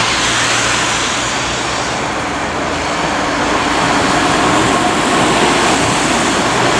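Steady street traffic mixed with a passenger train rolling across a railway bridge overhead, hauled by a CFR class 40 electric locomotive.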